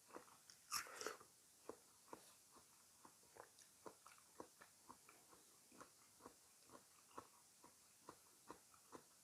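A crisp bite into fresh fruit about a second in, then steady close-up chewing, about two chews a second.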